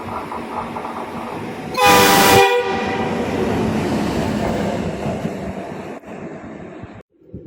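A train passing through a station sounds its horn once, a short loud blast, over the steady rumble of the train running by; the sound cuts off abruptly about seven seconds in.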